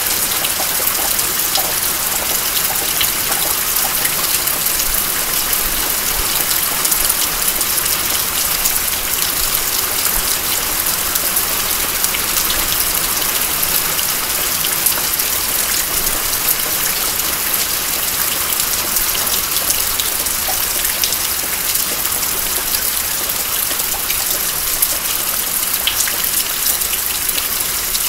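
Steady rain falling: an even hiss dotted with the ticks of individual drops, holding level throughout.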